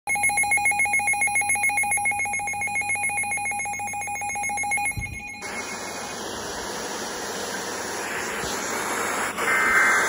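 Weather alert radio sounding its severe-thunderstorm-warning alarm: a rapidly pulsing two-pitch electronic tone. A thump about five seconds in, and the alarm cuts off abruptly; a steady hiss follows.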